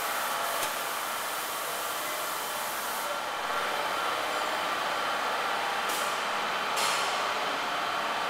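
Steady rushing air noise in a spray booth, with a faint hum, and short surges of higher hissing about three, six and seven seconds in.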